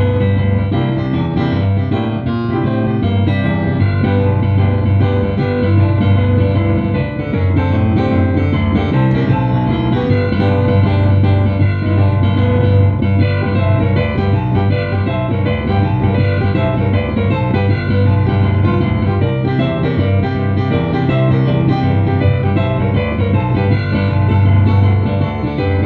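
Solo piano playing, many notes over a steady, strong bass line.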